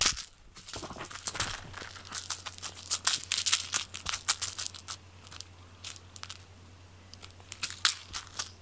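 Crinkling and rustling from a cat pawing, biting and batting a small toy on a fleece blanket close to the microphone. It comes as irregular crackles, busiest over the first four seconds, with another short flurry near the end.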